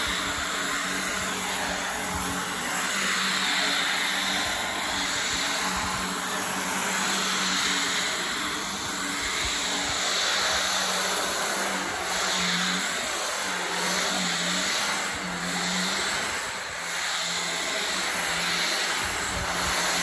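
LG CordZero cordless stick vacuum running on carpet, its powered nozzle's brush roll agitating the pile: a steady motor whine over a low hum. In the second half the hum wavers a little and the loudness dips briefly as the nozzle is pushed back and forth.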